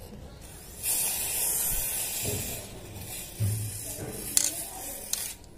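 Aerosol can of silver spray paint hissing in one long spray that starts about a second in and stops just before the end, loudest in its first couple of seconds.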